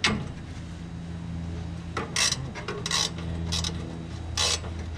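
Metal grill parts scraping and knocking as they are pulled off a Weber gas grill during disassembly: a click, then four short rasping scrapes spread over a few seconds.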